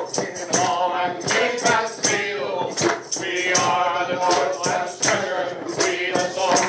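A choir singing a song, with percussion striking a steady beat under the voices.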